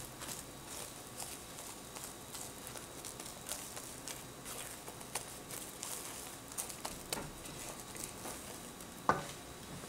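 Spatula stirring melting marshmallows in a nonstick pan: faint, irregular light taps and scrapes, with one louder knock about nine seconds in.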